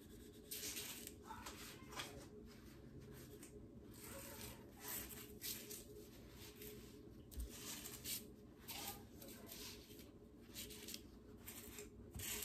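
Oiled paper towel wiped around the rim of a metal muffin tin, faint soft swishing strokes about twice a second, over a steady low hum.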